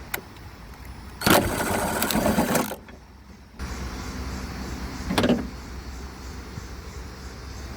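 Handling noise as the camera is picked up and repositioned: a click, a loud rubbing and scraping for about a second and a half, then a knock about five seconds in over a steady low background.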